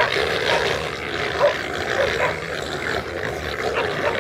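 Bail dogs barking and yelping at a mob of feral hogs, with short cries breaking through a constant scuffle of animals running through dry leaf litter.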